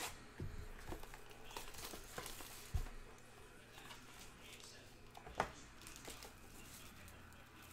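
Hands handling a trading-card box and its plastic wrapping: the wrapper crinkles and tears, with scattered cardboard clicks and two sharper knocks, about three seconds in and again about five and a half seconds in.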